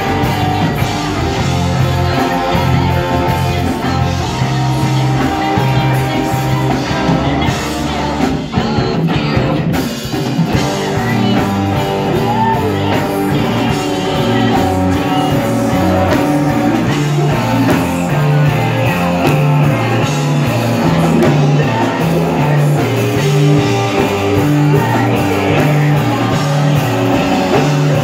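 A rock band playing live, loud and unbroken: a singer on a handheld microphone over two electric guitars, a bass guitar and a drum kit.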